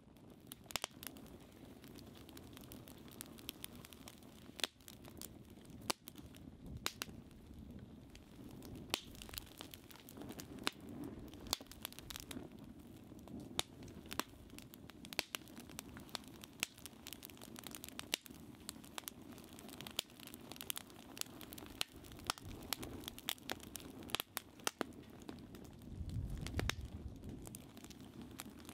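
A fire of burning paper in a metal fire pit, crackling with irregular sharp pops and snaps over a steady low rush of flame. Near the end a louder low rumble swells briefly.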